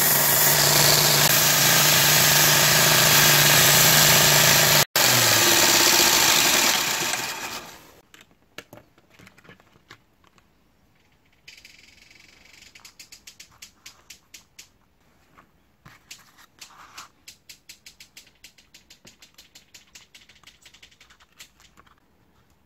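Belt grinder running, sanding a wooden knife handle scale pressed against the belt: a loud, steady grinding hiss over a low motor hum, which breaks off for an instant about five seconds in and dies away by about eight seconds. After that only faint clicks and quick light taps as the handle scales and pins are handled.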